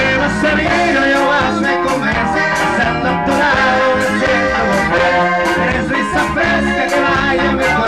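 Live norteño band playing: accordion over guitar and electric bass, with a steady beat.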